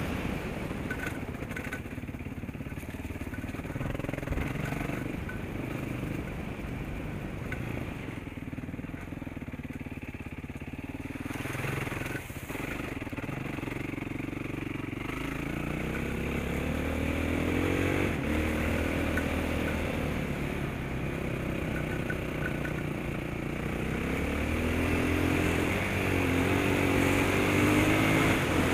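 Yamaha dirt bike engine running under way, its pitch rising and falling over and over as the throttle is opened and closed through the gears, getting louder in the second half.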